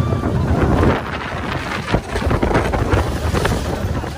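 Wind rushing over the microphone of a rider's phone on the Pepsi Max Big One roller coaster, over the low rumble and rattle of the train running fast along the steel track.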